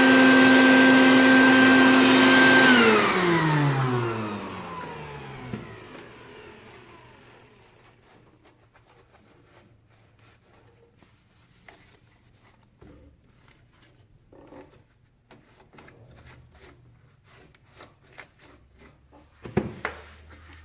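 Treadmill drive motor running with a steady whine, then switched off about three seconds in, its pitch falling as it spins down over a few seconds. After that, faint scattered clicks and taps, with a louder knock near the end.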